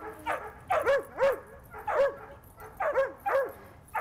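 A dog barking repeatedly during a play session, about eight short barks, several coming in quick pairs.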